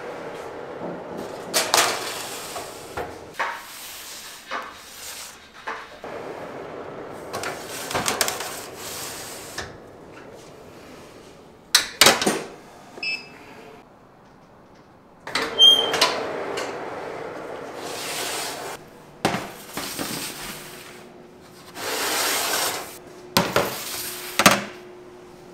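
Bakery kitchen work: clattering and knocking of pans, trays and utensils, with rustling handling noise between the knocks.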